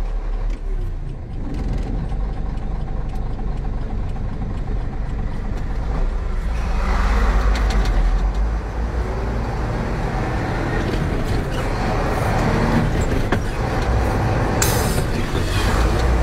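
Truck engine and road noise heard inside the cab while driving: a steady heavy rumble that grows louder about six seconds in, with a brief burst of noise near the end.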